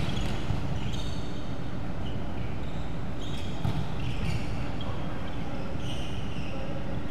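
Indoor volleyball rally on a wooden court: sneakers squeaking on the floor in short high chirps and the ball being struck by hand, over a steady low rumble of the hall.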